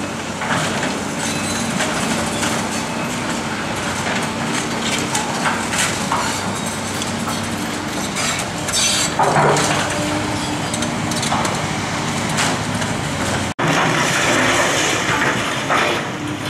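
Demolition by a hydraulic excavator: its engine hums steadily under repeated cracking and crashing as the bucket breaks and pulls down wood, masonry and glass from the building. The loudest crashes come about nine to ten seconds in and again near the end.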